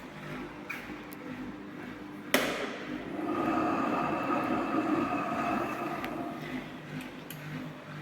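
AEG Öko Lavamat 4100 washing machine on its spin cycle, its worn drum bearings giving a steady whine over a rumble. A single sharp knock comes about two seconds in, and the sound grows a little louder just after.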